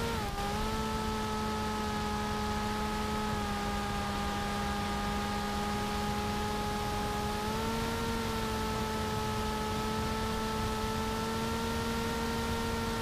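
Electric motor and pusher propeller of a TBS Caipirinha flying wing whining steadily over a constant rush of wind, heard from the camera on board. The pitch dips briefly at the start, drops a little about three seconds in and rises again about seven and a half seconds in as the motor speed changes.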